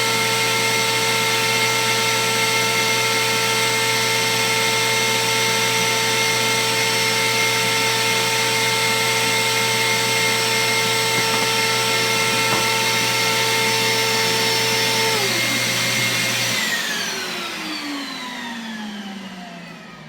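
Router table motor running at speed with a steady high whine, together with a second motor. Near the end both are switched off: one stops about 15 seconds in, and the other winds down with a long falling pitch, fading away.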